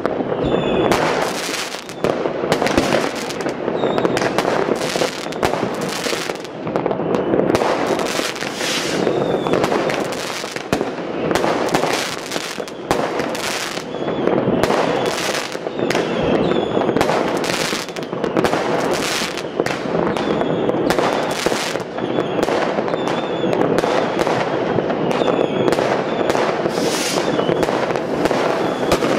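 New Year's Eve fireworks and firecrackers going off all across a city: a dense, continuous barrage of overlapping bangs, several a second, with short high whistles among them.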